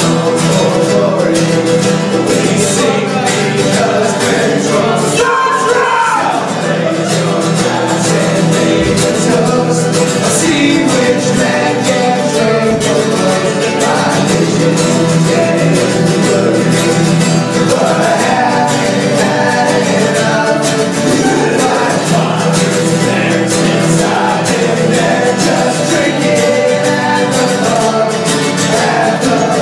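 Live acoustic folk music: two strummed acoustic guitars and a mandolin, with several men singing.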